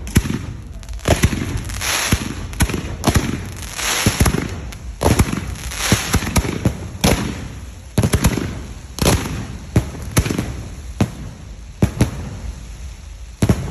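Fireworks going off: a long irregular string of sharp bangs, one or two a second, with crackling and hissing between the reports.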